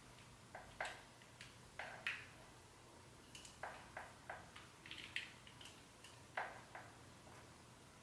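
Light clicks and taps, a dozen or so at irregular intervals, from a Babyliss Pro curling iron being handled and worked through the hair.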